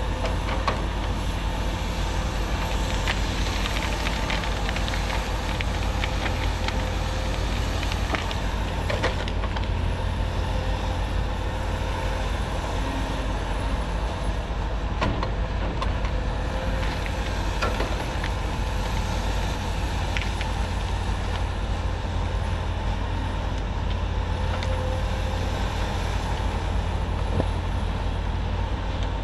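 Cat 568 shovel logger's diesel engine running steadily under working load, with a faint steady whine and scattered knocks and clunks from the machine at work.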